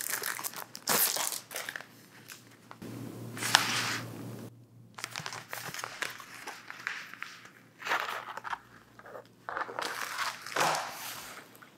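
Printed gift packaging being handled and torn open by hand: irregular crinkling and tearing, loudest in a burst about three to four seconds in with one sharp crack.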